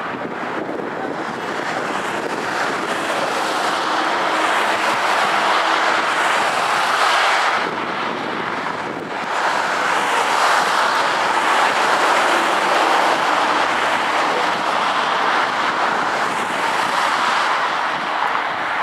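Fireworks display: the bursts and crackle of the shells run together into a continuous rushing noise that swells and eases, dipping briefly about eight seconds in before building again.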